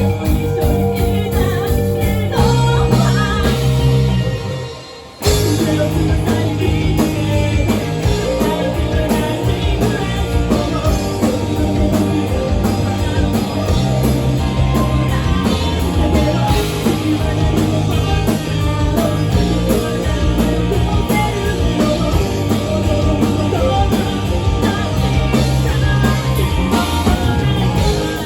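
Rock band playing live, with drum kit, guitar and singing. About four seconds in the sound drops away for about a second, then the full band comes crashing back in.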